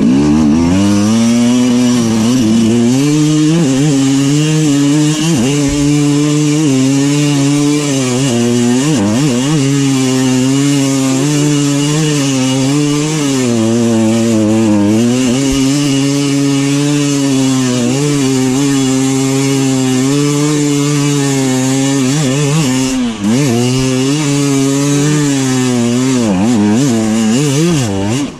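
Two-stroke dirt bike engine being ridden, its pitch rising and falling constantly as the throttle is opened and closed, with a steady hiss over it.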